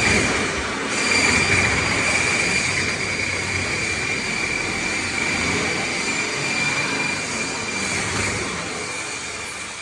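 IBC tote cutting machine running, a steady high-pitched whine over a loud noisy rush, fading near the end.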